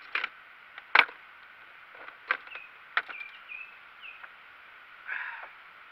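Several sharp knocks and taps, the loudest about a second in, from a landing net and gear knocking about in a small boat while a caught catfish is handled in the net. A brief scuffling rustle follows near the end.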